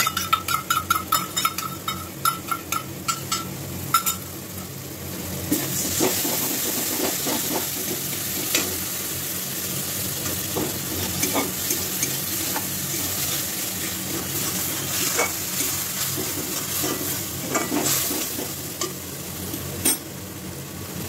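A steel spatula clinks and scrapes rapidly against a steel kadai for about four seconds as whisked sour curd is stirred into the spice masala. The masala then sizzles steadily, with occasional scrapes of the spatula as stirring goes on.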